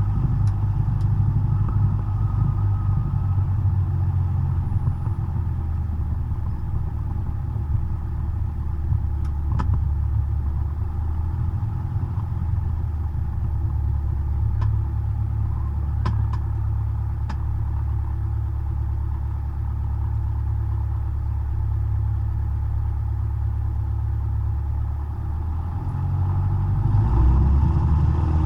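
Cessna 172's piston engine heard from inside the cockpit, running steadily, with a few faint clicks. Near the end the engine note changes and gets louder as power is increased.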